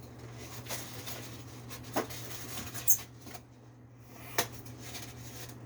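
Light scratching and a few sharp clicks from hands working on the parts of a window air conditioner, over a steady low hum.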